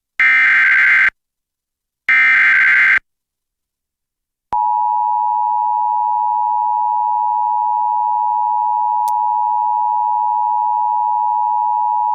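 Emergency Alert System tones as relayed over FM radio. First the last two of the three SAME header data bursts, each a harsh digital warble about a second long, a second apart. Then, after a short gap, the EAS two-tone attention signal (853 and 960 Hz sounded together) holds steady for about eight seconds, announcing a severe thunderstorm warning.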